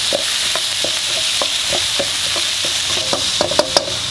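Diced chicken breast sizzling in hot oil in a frying pan while a wooden spatula stirs and scrapes it, about three or four strokes a second, with a few sharper knocks near the end.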